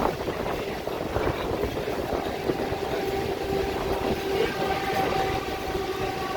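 A train running along the track: a steady rumble, with a steady humming tone growing stronger about halfway through.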